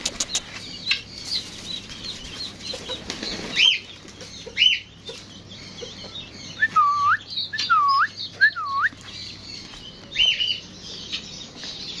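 Caged pet birds calling with repeated short chirps over wing flapping and light scuffling. Around the middle come three swooping whistled calls in quick succession.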